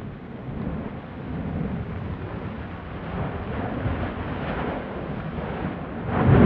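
Stromboli volcano's crater rumbling and roaring continuously. About six seconds in, a sudden loud blast breaks out as a Strombolian explosion begins.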